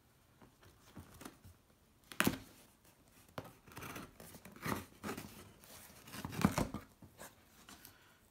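Knife blade slicing along the packing tape on a cardboard shipping box, with scraping and tearing strokes as the tape parts and the flaps are pulled open. A sharp knock comes about two seconds in, and the loudest scrape comes about six and a half seconds in.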